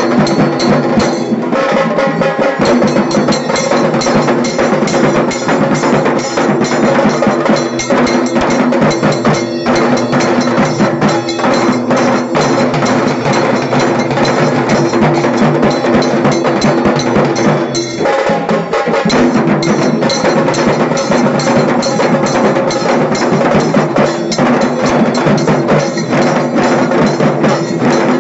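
Dhol tasha drumming: tasha drums beaten with sticks in a fast, dense rattle over the deeper dhol, played loud and without a break, with a short dip in the beat about eighteen seconds in.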